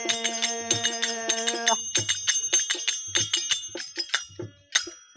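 A harmonium holds a chord that stops about two seconds in. Quick clinking of manjira (small brass hand cymbals) and dholak drum strokes run underneath and carry on alone, growing fainter near the end as the bhajan closes.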